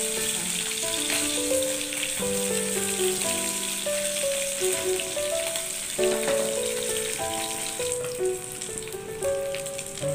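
Small whole fish frying in hot oil in a wok, a steady sizzle, with instrumental background music of slow held notes playing over it.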